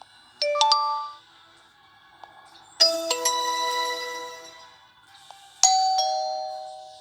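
Short electronic chime tones from a ZTE Blade A30 (Telstra Essential Smart 2.1) phone's speaker, played one after another: a quick few-note chime about half a second in, a bright chord near three seconds that fades over about two seconds, and a two-note ding-dong near six seconds.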